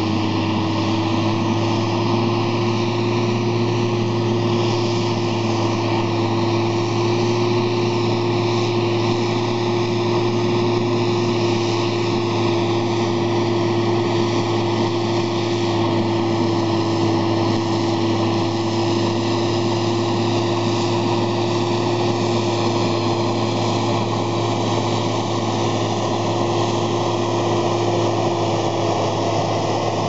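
New Holland TM155 tractor's six-cylinder diesel engine running steadily under load while pulling a five-furrow plough through stubble: an even drone with a steady hum whose pitch holds nearly constant.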